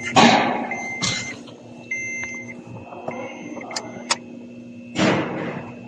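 Short high electronic beeps, each about half a second, repeating roughly once a second, with a few knocks and handling noises; no engine running yet.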